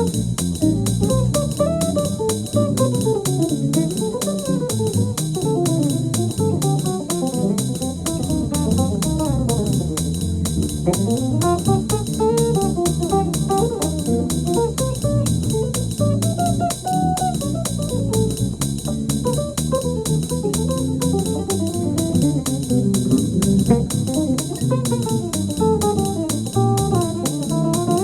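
Guitar playing continuous melodic lines over a bass part, jazz-style music.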